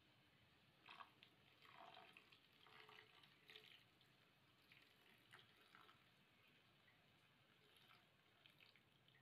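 Water poured from above into a frying pan of stir-fried cassava shoots: faint, uneven splashing and trickling.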